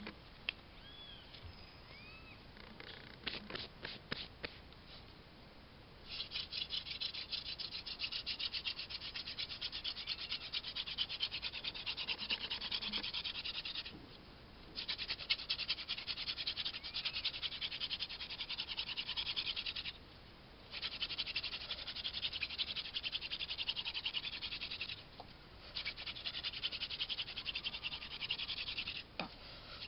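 Hand-drill fire making: a wooden spindle spun back and forth between the palms in a notch of a wooden hearth board, a fast dense scratching of wood grinding on wood. It comes in four long bouts of several seconds, with brief breaks as the hands go back up to the top of the spindle. A few sharp clicks come before it, as the spindle is set in place.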